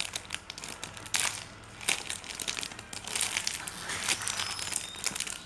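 Crinkling and crackling of a squishy toy's plastic packaging as it is handled, in irregular rustles.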